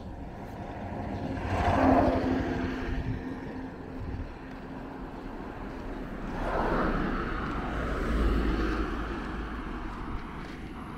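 Motor vehicles passing on a street. Engine hum and road noise swell and fade twice, about two seconds in and again around seven to eight seconds in.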